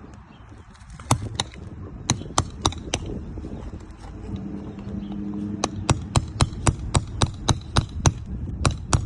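Repeated sharp hammer taps on a roofing pry bar working nails loose under a shingle: a few scattered strikes, then a steady run of about three to four taps a second.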